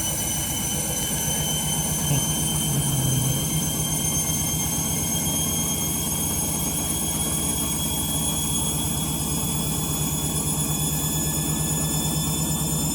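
Candy Grande Vita 7 kg washing machine on its final spin: a steady, loud drum rumble and drone with a motor whine that slowly rises in pitch as the drum speeds up. The owner takes the noise for the drum bearings on the way out.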